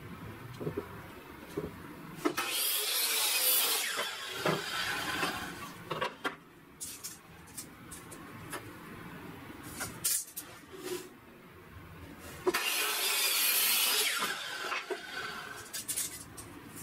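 A compound miter saw cutting through a wooden board twice, each cut lasting about two seconds. Light clicks and knocks of handling the board and tools come in between.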